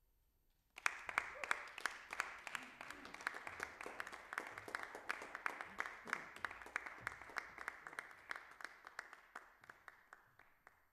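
Audience applause that breaks out suddenly about a second in, the separate claps easy to pick out, then slowly thins and fades near the end.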